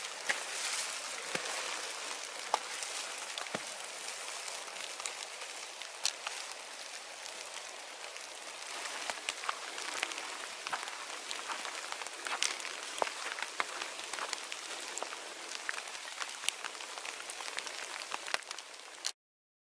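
Graupel (snow pellets) falling and hitting surfaces: many small sharp ticks over a steady hiss, cutting off briefly near the end.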